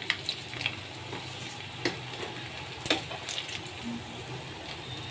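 Fish steaks shallow-frying in hot oil in a pan: a steady sizzle with a few sharp crackles and pops as a fried piece is lifted out on a spatula.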